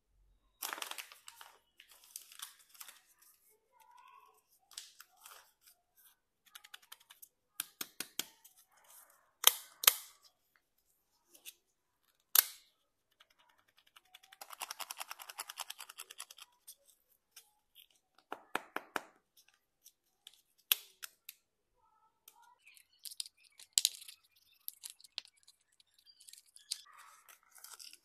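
A Kinder Joy egg being unwrapped by hand: foil and paper wrappers crinkling and tearing, and the plastic egg and toy parts clicking, with several sharp plastic snaps. A longer stretch of dense crinkling comes about halfway through.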